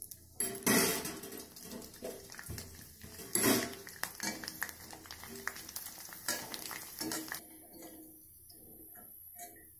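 A wire skimmer clinks and scrapes against a stainless steel kadai, with several sharp metal knocks, while rice vadiyalu fry in hot oil with a sizzling hiss. The sizzle fades near the end as the fried vadiyalu are lifted out.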